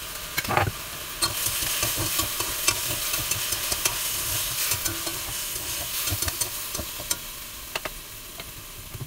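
Chicken pieces and dark soy sauce sizzling in a metal wok as they are stir-fried with tongs and a spatula, the utensils clinking and scraping against the pan. A sharp knock about half a second in.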